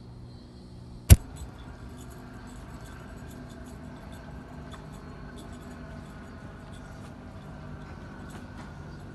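A single sharp click about a second in, followed by a fainter one, then faint scattered light ticking over a steady low background hum.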